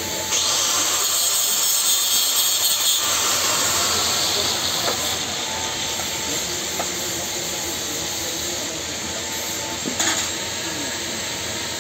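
Angle grinder grinding a steel pipe for about three seconds, then a steady hiss, with a couple of short knocks near the end.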